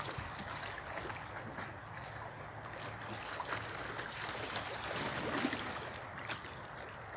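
Small waves lapping and splashing against shoreline rocks, a steady wash of water with scattered small splashes, with some wind.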